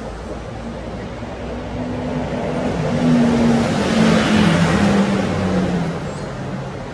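A motor vehicle passing by on a street, growing louder and then fading, its engine note dropping in pitch as it goes past.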